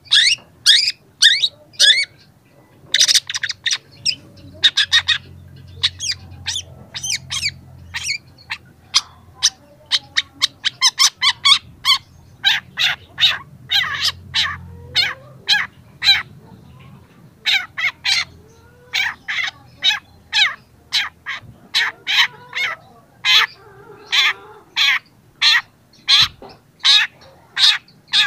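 Young long-tailed shrike (cendet) singing: a long, unbroken run of short, sharp, harsh notes, about two to three a second, with quicker clusters of notes now and then.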